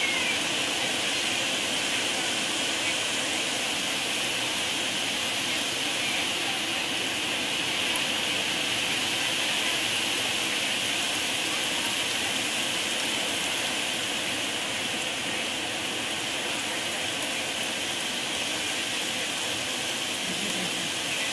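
Heavy hurricane rain falling steadily: an even, unbroken hiss.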